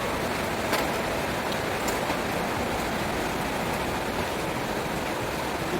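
Steady rain falling, an even hiss of drops on surfaces, with a couple of sharp drip ticks about a second in and again near two seconds.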